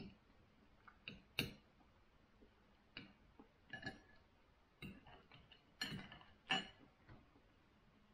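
Metal knife and fork clinking and scraping against a ceramic plate while eating: about ten short, irregular clinks, the loudest about six and a half seconds in.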